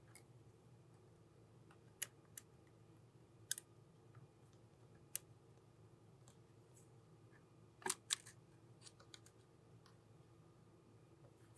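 Scattered small, sharp clicks and taps of small tools against the plastic and metal parts of a compact camera being reassembled, over a faint low hum. The loudest is a quick double click about eight seconds in.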